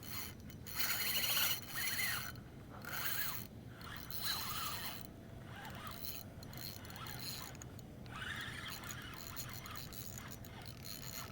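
Spinning reel being cranked in repeated spurts, its gears and rotor giving a rasping, whirring mechanical sound as line is wound in on a hooked fish.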